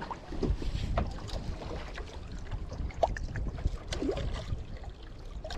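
Wind rumble on the microphone and water sloshing around a small wooden outrigger boat, with scattered light clicks and taps from handling the fishing lure and hook.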